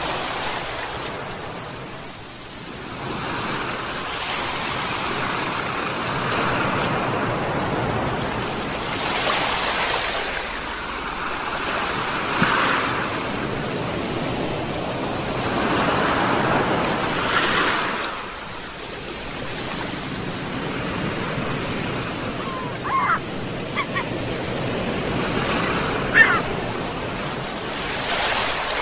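Sea waves breaking and washing ashore in slow, repeating swells. A few short seagull calls come near the end.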